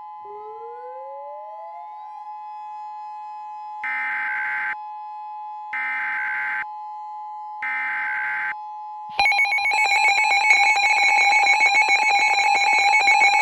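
Mock Emergency Alert System tones: a steady electronic two-tone hum with a tone gliding upward, then three short buzzing digital data bursts about two seconds apart, like the SAME header of an EAS alert. About nine seconds in, a much louder, rapidly pulsing multi-tone alarm starts, ringing like a telephone bell: the attention signal that comes before the voice message.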